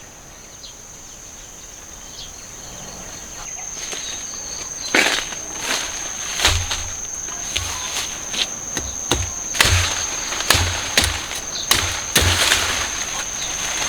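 Insects trilling with a steady high tone. From about five seconds in, a series of sharp knocks and cracks comes irregularly, roughly one or two a second.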